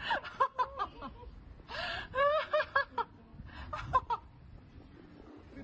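Snickering laughter in short bursts, with a quick run of laugh pulses about two seconds in and another short burst about four seconds in.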